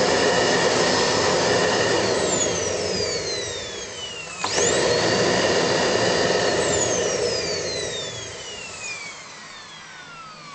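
AEG T2 Cyclone O2 vacuum cleaner's Domel motor being switched on and off. Its whine sweeps up to full speed, runs loud, and falls away as the motor coasts down. This happens twice: it starts again about four seconds in, and the second run-down fades out over the last few seconds.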